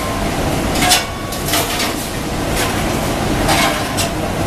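Loud, steady workshop machinery noise with sharp metallic clanks and knocks at irregular intervals, about one a second.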